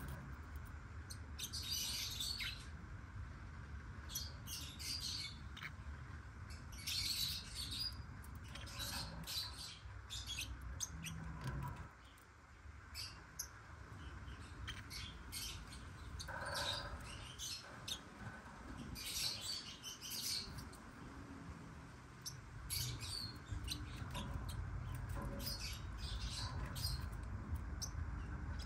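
Abyssinian lovebirds (black-winged lovebirds) chirping in short clusters of high-pitched chatter every couple of seconds, over a steady low rumble.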